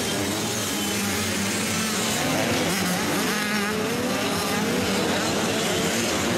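Motocross bike engines revving and easing off, several at once, their pitch rising and falling as riders go through the corners.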